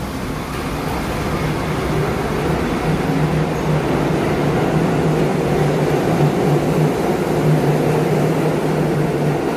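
R62A subway train pulling out of the station and gathering speed: a steady rail rumble with a low hum that grows louder from about three seconds in.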